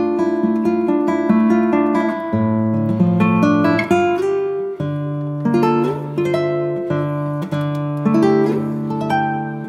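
Background music on acoustic guitar: a steady run of plucked notes and chords.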